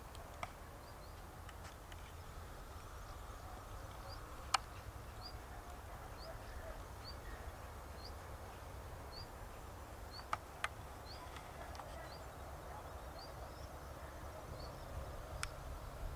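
Quiet open-field ambience: a short high chirp repeated about twice a second, over a steady low rumble, with a few sharp clicks, the loudest about four seconds in and a close pair about ten seconds in.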